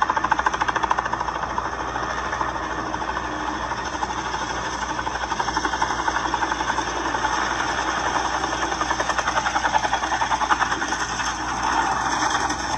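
Robinson helicopter's rotor blades chopping in a fast, even beat over its engine as it comes in on a slow approach and settles, growing louder toward the end.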